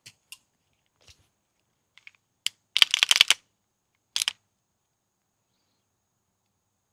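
Metallic clicks and clatter of a Staccato P 2011 pistol being worked by hand as a primed empty case is loaded into its chamber. There are a few light single clicks, then a quick run of clicks about three seconds in, the loudest part, and another short cluster about a second later.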